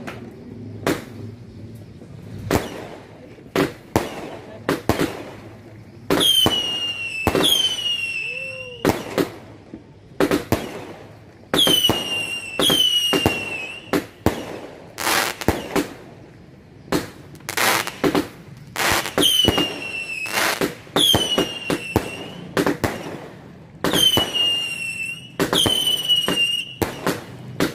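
A 100-shot, 0.8-inch firework cake firing: a long, uneven run of sharp bangs from the launches and bursting shells. About ten of the shots carry a whistle that drops quickly in pitch, then holds for about a second.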